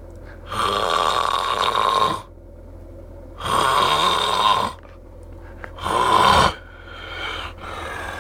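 A sleeping man snoring loudly: three rasping snores a few seconds apart, the last one shorter.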